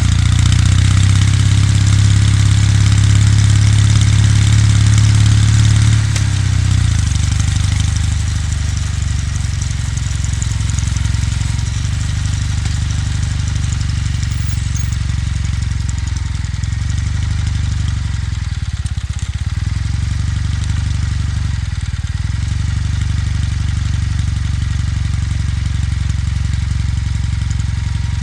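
Kawasaki W800's air-cooled parallel-twin engine running; its note drops about six seconds in as the bike slows, then runs steadily at a lower pitch.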